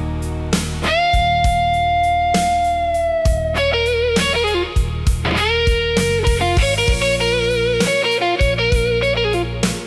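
Electric blues guitar solo over bass and drums: a long held note that sags slightly in pitch, then a run of shorter notes with vibrato.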